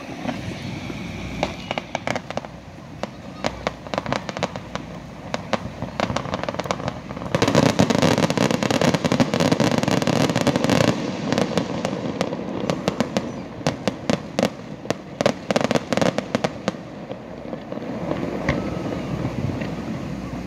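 Aerial fireworks shells bursting in rapid volleys of sharp bangs. The bangs come thickest in a heavy barrage around the middle, then thin to scattered pops near the end.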